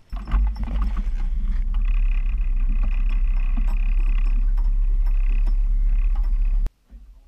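Mercury outboard motor running with the boat under way, with heavy wind buffeting on the microphone; the sound is steady and cuts off suddenly near the end.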